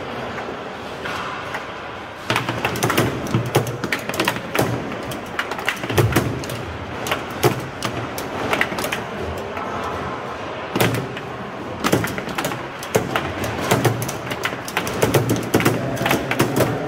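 Foosball in play: the ball cracks off the plastic players and clacks against the table's walls, with rods knocking at irregular moments and a few harder shots standing out.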